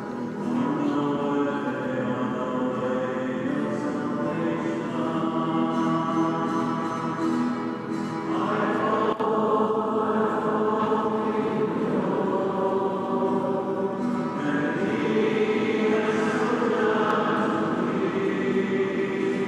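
Choir singing long, held chords, several voices together, with the chord changing every few seconds.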